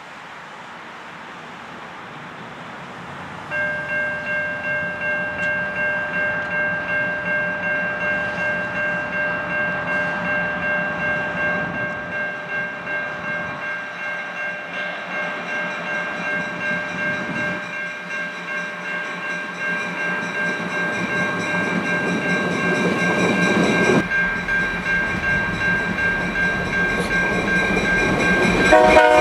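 A railway warning bell starts ringing a few seconds in, about two to three strokes a second, as the EMD GP38-2 diesel locomotives approach slowly, their engine rumble growing louder.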